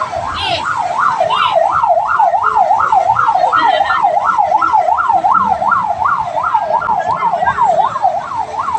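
Emergency vehicle siren on a fast yelp, its wail sweeping up and down about three times a second without a break.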